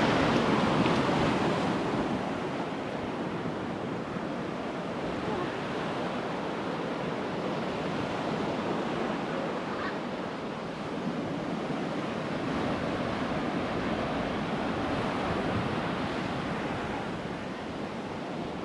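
Ocean surf breaking and washing up the beach, loudest in the first couple of seconds and then a steady wash, with wind on the microphone.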